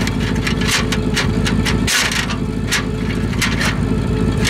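Electric drain snake's motor running, its spinning cable clattering and scraping inside a car's tailpipe as it is worked through the blocked exhaust. The motor cuts out for a moment about two seconds in.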